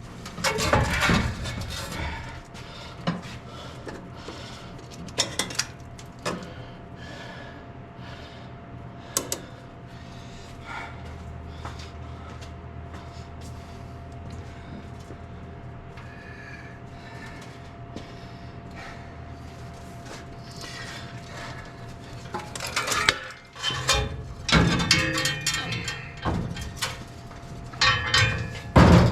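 Metal clanking and scraping of hand tools and cast-iron engine parts while the intake and exhaust manifolds are taken off an old truck engine. There are scattered knocks early on, a quieter stretch in the middle with only a faint steady hum, and a run of busier clattering in the last few seconds.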